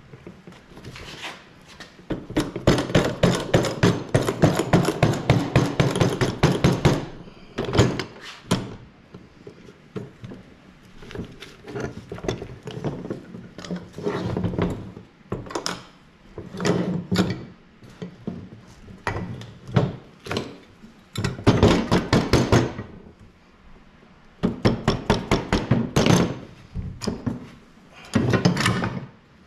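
Runs of quick mallet blows on a Kawasaki 340 snowmobile engine's crankcase, knocking the case halves apart. A long run starts about two seconds in, followed by several shorter runs with pauses between.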